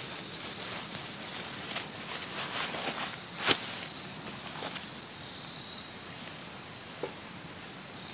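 Insects trilling steadily in a high-pitched drone. Over it, the nylon fabric of a tent rustles as it is pulled out of its carry bag and handled, with a sharp click about three and a half seconds in and a smaller one near the end.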